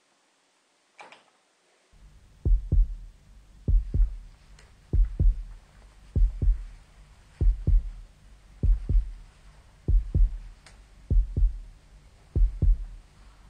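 Heartbeat sound effect: slow double 'lub-dub' thumps, deep and low, repeating about every 1.2 seconds. It starts about two seconds in, after a brief soft rustle.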